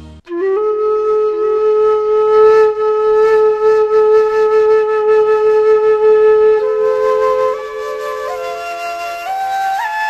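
Flute music: one long held note, then a slow melody moving in steps near the end.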